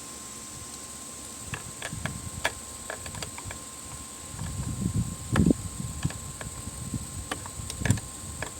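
Metal hand tools clicking and clanking on a car battery's terminal as the terminal nut is screwed back down, in irregular light clicks with two louder knocks, about halfway and near the end.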